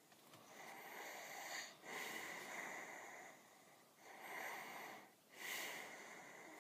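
Snoring: four long, noisy breaths in a row with short gaps between them.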